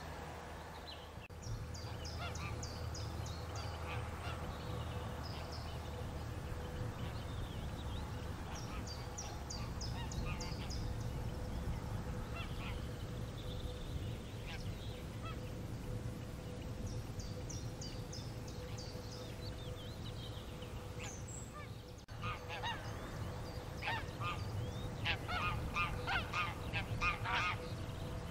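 Small songbirds sing short high trilled phrases a few times over a low steady rumble. Then, about three quarters of the way through, wild geese start honking: many overlapping calls that grow louder toward the end.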